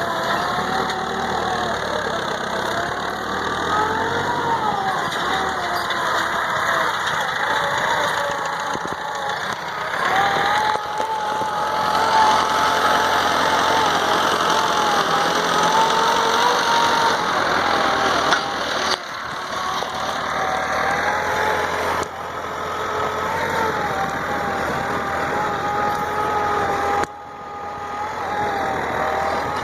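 Tractor engine running steadily while ploughing, its pitch wavering up and down, with a few sudden changes in level.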